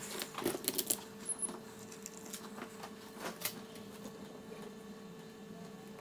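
Faint clicks and taps of small tools and a phone logic board being handled on a repair bench: a cluster in the first second, then a few more around two to three and a half seconds in, over a steady faint electrical hum.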